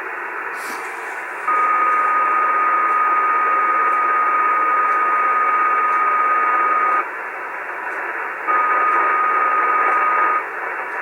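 Icom 730 shortwave receiver on 75-metre single sideband, giving steady band hiss. A repeating interfering signal keys on and off over it: a steady high tone with a lower hum that holds for several seconds, drops out, then comes back twice, each time much louder than the hiss alone. The operator has no idea what it is.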